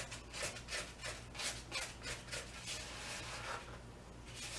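Stirring a thick, crumbly rum-ball mixture in a bowl: rhythmic scraping strokes, about three a second, that fade out near the end.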